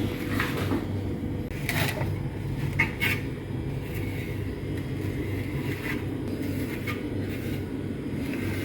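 A steady low hum, with a few short scrapes and clicks about two and three seconds in.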